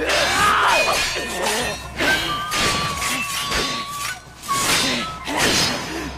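Sword-fight sound effects: blades clashing in a rapid series of sharp metallic strikes, with whooshes of swings, over background music.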